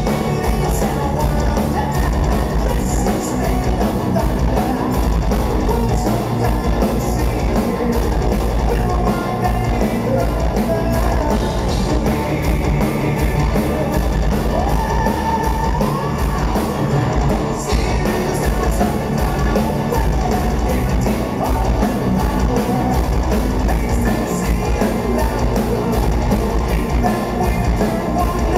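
Power metal band playing live at full volume: a male singer's lead vocals over electric guitar, keyboards and a steady fast drum beat.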